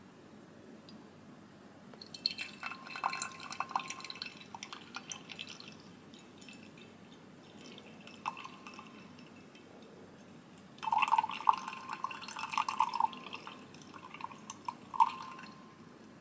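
Tea poured from a glass teapot into a glass mug, trickling and dripping into the glass, in two spells: one starting about two seconds in and a louder one about eleven seconds in.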